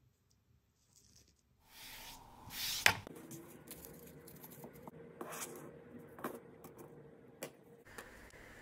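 Handling noises from a plastic and wire-mesh watch-parts cleaning basket. A rustling swell rises to a sharp click about three seconds in, then scattered light clicks and taps follow over a faint steady hum.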